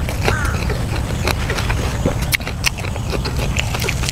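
Close-miked chewing of a person eating, with many sharp wet mouth clicks and smacks, over a steady low rumble.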